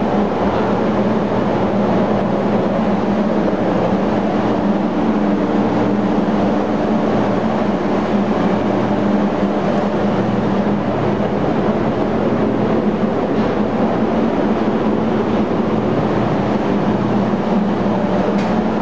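Loud, steady drone of a cruise ship's engine-room machinery: a constant low hum under an even hiss.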